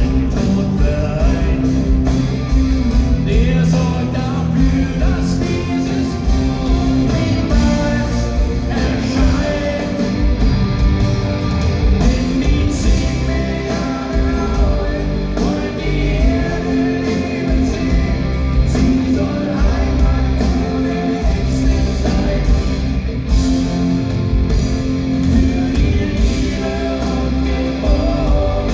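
Live rock band playing: electric and acoustic guitars over drums, with a male lead vocal.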